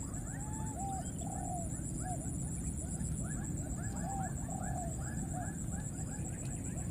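Baby macaque crying: a rapid series of short, high squealing calls, several a second, with longer wavering cries about a second in and again around four seconds in. A steady high-pitched buzz sounds behind it.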